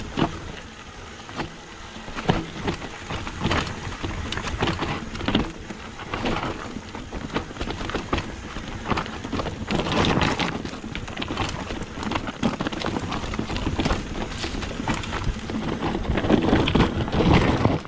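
Mountain bike running fast down a rocky, loose trail: tyres crunching over stones and gravel, and the bike rattling and knocking unevenly. It gets louder and rougher near the end.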